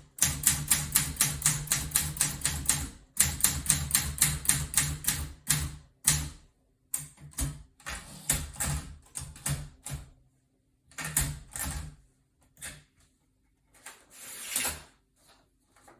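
Olympia SM9 manual typewriter typing: rapid, even keystrokes, about seven a second, for the first five seconds or so. Then come slower, scattered strokes with pauses, and one longer noisy sound lasting nearly a second near the end.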